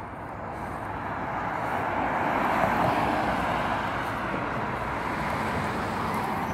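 Car passing close by on the street, its tyre and engine noise swelling to a peak about three seconds in and staying up as it goes by.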